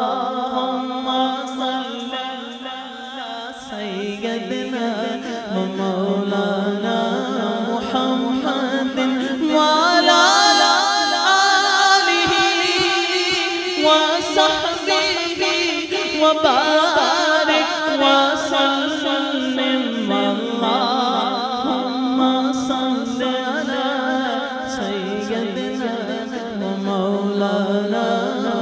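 A man singing a naat solo without instruments, into a hand-held microphone: long held notes with wavering, ornamented runs, the pitch stepping up and down between phrases.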